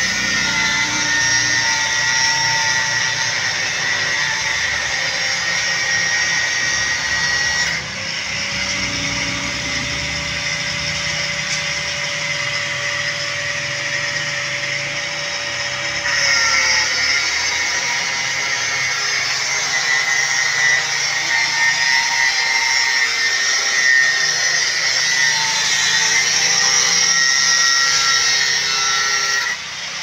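Angle grinder cutting through steel rebar: a steady high motor whine over a rasping grinding hiss. The pitch of the whine shifts up about a quarter of the way in and drops back a little past the middle as the load on the disc changes.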